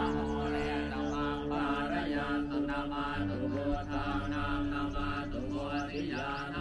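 Chanted Buddhist mantra, a voice carried over long steady held drone tones.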